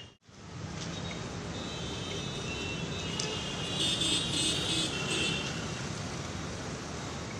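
Street ambience with traffic noise, after a brief cut to silence at the very start; a cluster of high thin tones sounds from about two to five seconds in.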